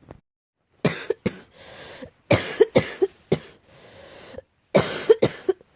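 A person giving a barking cough in three quick bouts of sharp coughs, two to several in each bout. The uploader puts the cough down to cat allergy.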